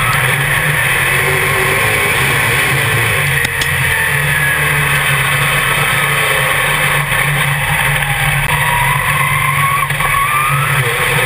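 Dirt modified race car's V8 engine heard from inside the cockpit, running hard in a race, its note rising and falling as the throttle comes on and off.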